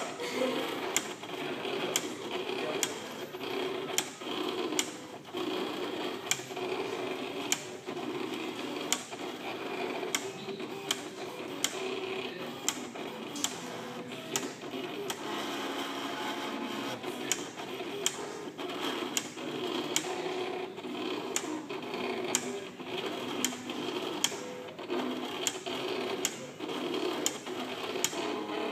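Computer-controlled paper cutting machine running as it cuts a sheet of paper: a steady motor whirr with sharp clicks every second or so, unevenly spaced.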